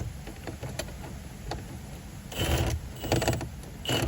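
Metal clicking and rattling of tools and parts being worked at a car's ignition lock, starting a little past halfway through, over a steady low rumble.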